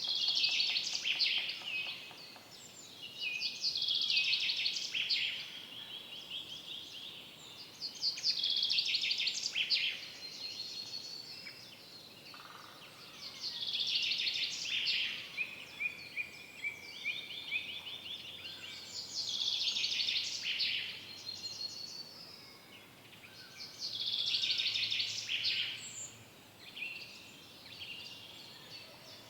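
A songbird in a forest singing short, fast trilled phrases, each lasting about two seconds and repeated about every five seconds, over faint background ambience.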